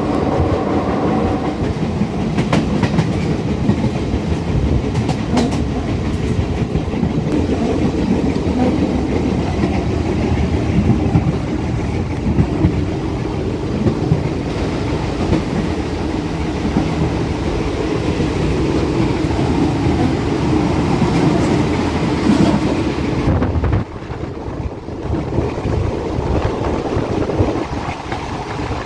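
Passenger train carriage running along the track: a continuous rumble of steel wheels on rails with occasional sharp clicks over the rail joints, heard through the carriage's open doors. The noise drops suddenly about 23 seconds in.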